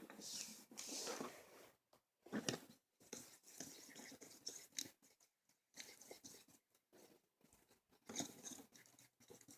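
Faint, irregular crunching and scraping handling noises, heard in a few short spells, as salt is added to a cleanser slime mixture in a bowl.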